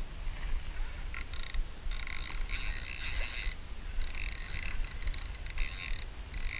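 Fishing reel ratcheting in bursts of rapid high-pitched clicking while a hooked fish is being played and tired out. The longest burst lasts about a second and a half, and shorter stuttering bursts come near the end.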